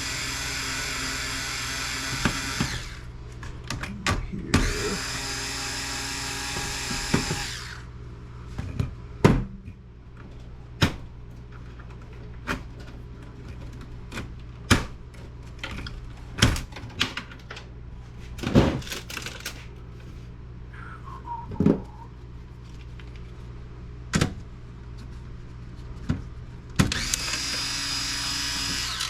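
Cordless drill/driver running in three short bursts, backing out screws from a computer case, with scattered clicks and knocks of metal parts being handled in between.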